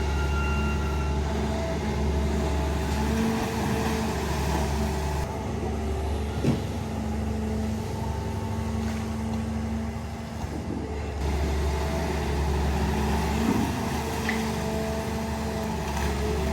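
Long-reach excavator's diesel engine running steadily while digging, with a couple of short knocks, one about six seconds in and one near the end.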